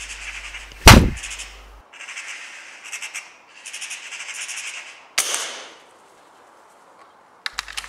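Magpie chattering in rattling bursts, broken about a second in by a loud gunshot bang and again just after five seconds by a softer bang that fades away. A few sharp clicks come near the end.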